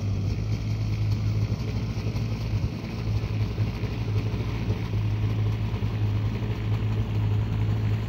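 Small propeller airplane flying overhead, its engine giving a steady low drone.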